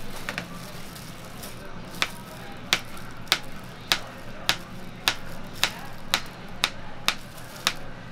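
Knife blade striking a plastic cutting board as a peeled banana is sliced into rounds: a regular run of sharp knocks, about two a second, starting about two seconds in.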